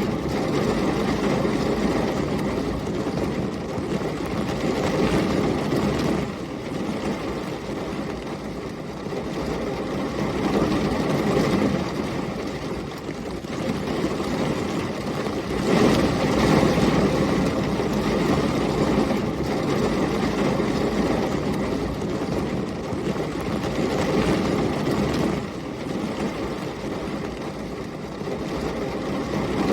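Heavy rain with storm wind: a dense, steady rush that swells and eases every few seconds, loudest about halfway through.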